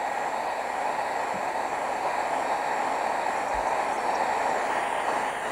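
Handheld hair dryer blowing steadily, drying wet watercolour paint on paper.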